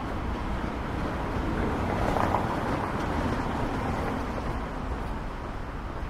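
City street traffic: a vehicle passes, its sound swelling to a peak about two seconds in and fading, over a steady low rumble.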